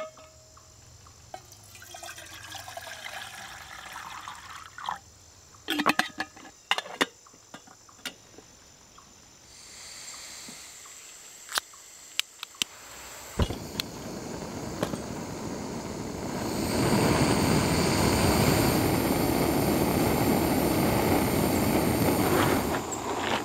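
Water poured from a bottle into a camp kettle, the pitch rising as it fills, followed by scattered clicks. About 13 seconds in a remote-canister gas camp stove lights with a sharp click and burns with a steady hiss under the kettle, growing louder about 17 seconds in as the flame is turned up.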